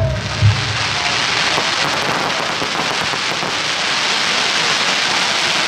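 Aerial fireworks crackling densely: a steady hiss of countless tiny pops from crackling stars, after two low thumps in the first half second.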